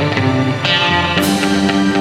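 Background music led by guitar, with sustained chords that change about half a second in.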